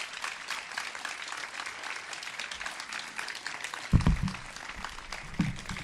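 An audience clapping steadily, with two dull thumps on the microphone, about four seconds in and again near the end.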